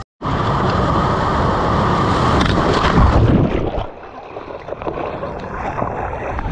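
Steady rush of sea water with wind buffeting the microphone, loud for the first few seconds and then dropping to a quieter wash about four seconds in.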